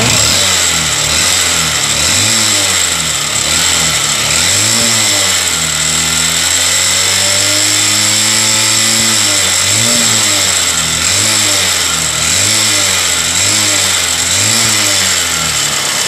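Honda CB Shine's single-cylinder four-stroke engine running just after starting, its speed rising and falling about once a second and holding steadier for a few seconds midway. It makes an abnormal engine noise that the mechanic puts down to engine oil not climbing up to the cylinder head.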